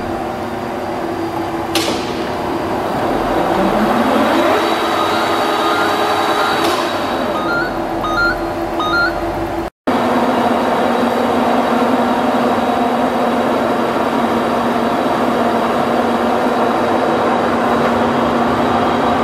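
WMW DLZ 630 centre lathe running under power, a steady mechanical hum from its motor and gearing. A whine rises in pitch about three to four seconds in, with two sharp clicks before and after it. The sound cuts out for a moment about halfway, then runs on as a steadier, lower hum.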